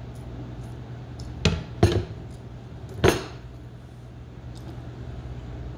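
A plate being set down on a table: three sharp knocks, two close together about a second and a half in and a third about a second later, over a steady low hum.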